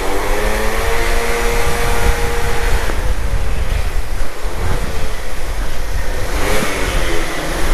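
Scooter engines revving for a sound check, inside a covered car-wash hall: the pitch climbs and holds, drops about three seconds in, then rises again, over a steady low rumble.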